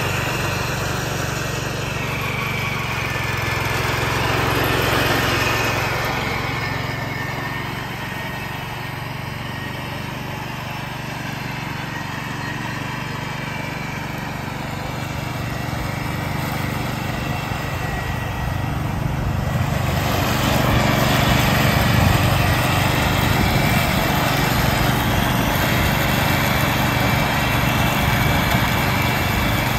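1969 Ford 140 garden tractor's engine running steadily under load, with its mower deck cutting and mulching leaves. It is fainter in the middle and grows louder about two-thirds of the way in.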